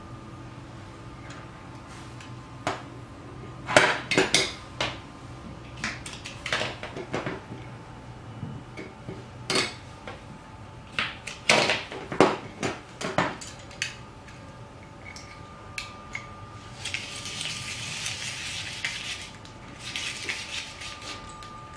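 Stainless steel rotary grater clinking and knocking as it is handled and set on a wooden table, a scattered run of sharp metal clinks. Near the end come two stretches of scraping hiss lasting a few seconds.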